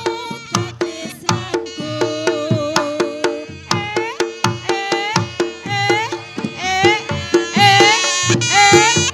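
Javanese folk ensemble music for a jathilan dance: hand drums beat a quick, steady rhythm of about three to four strokes a second under a melody whose notes bend upward as they start, getting a little louder near the end.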